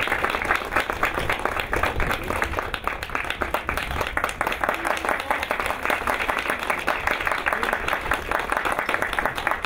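A crowd applauding, many hands clapping steadily with no break.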